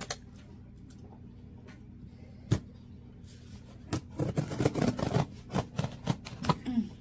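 Scissors cutting through the packing tape along the seam of a cardboard box: a quick, irregular run of short cutting sounds from about four seconds in. There is a single sharp click before it.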